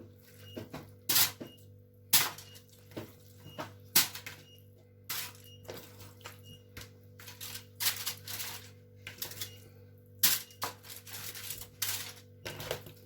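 Aluminium foil crinkling and rustling in irregular crackly bursts as pieces of raw marinated chicken are laid on it, over a steady low hum.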